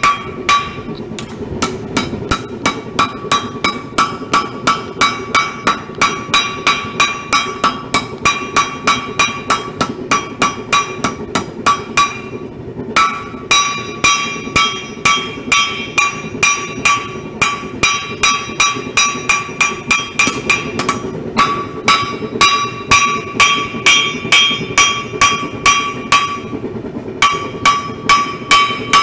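Hand hammer striking a red-hot railroad spike on an anvil, forging out the knife blade: a steady run of about two to three blows a second, each ringing, with short breaks near the middle and near the end.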